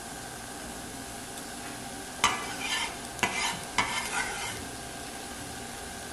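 Chopped onions frying in oil in a nonstick pan and being stirred: three short, sharp bursts of sizzling and stirring about two seconds in, over a steady hum.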